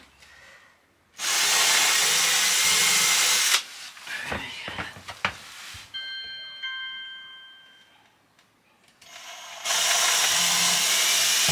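Cordless drill boring pilot holes through 12 mm plywood flooring: two bursts of drilling of about two seconds each, with a few light knocks between them.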